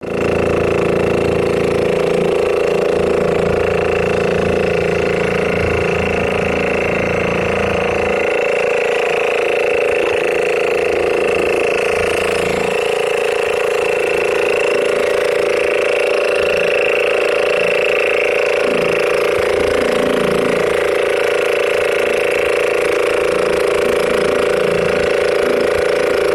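An engine running steadily at an even speed, with a constant hum and rumble and no change in pace.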